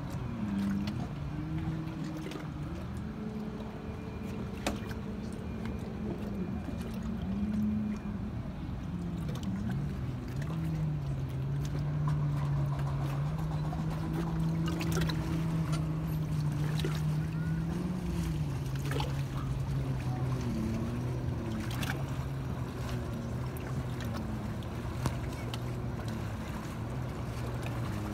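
Motorboat engine idling: a steady low rumble whose pitch wavers and shifts a few times.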